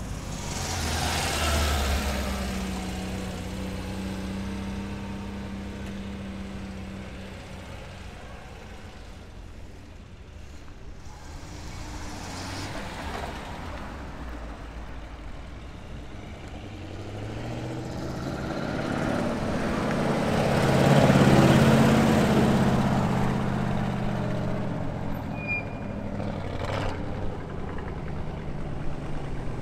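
Several classic cars drive slowly past one after another, engines running at low speed. Each engine note swells and fades as the car goes by, and the loudest pass comes about two-thirds of the way through.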